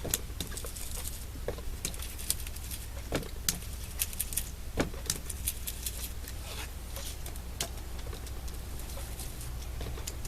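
Irregular light taps and scuffs of a foam ink blending tool dabbing green ink through a stencil onto an index card, over a steady low hum.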